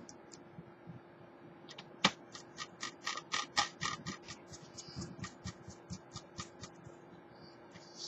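Small metal clicks as a screwdriver works a screw in an opened-up laptop's motherboard area: one sharper click about two seconds in, then a quick run of light clicks at about four a second that thins out near the end, over a faint steady hum.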